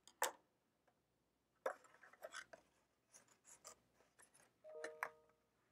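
A single scissors snip near the start, then a paper plate and yarn being handled, with scattered crinkles and rustles of the plate and a brief squeak of the bent plate about five seconds in. Faint throughout.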